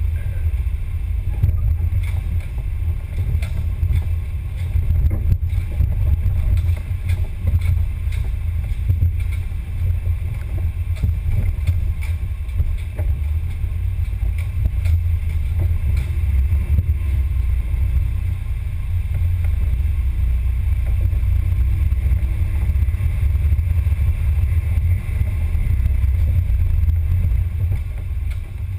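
Scale RC crawler driving over a rough, muddy trail, heard from the body-mounted camera: a steady low rumble of motor and drivetrain vibration, with frequent small clicks and knocks from the chassis over bumps.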